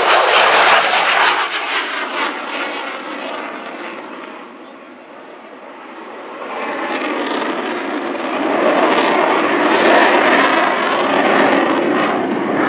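F-16 Fighting Falcon jet flying a display pass: loud jet engine noise fades over the first few seconds, then swells back up from about six seconds in as the jet comes round again.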